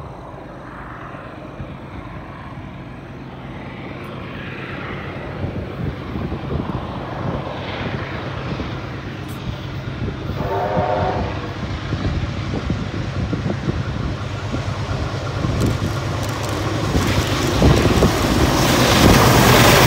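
Approaching heritage train led by diesel locomotive 4501, with steam locomotive 3801 and diesel 4201 behind: a low engine rumble that grows steadily louder as the train nears. A brief pitched note sounds about ten seconds in.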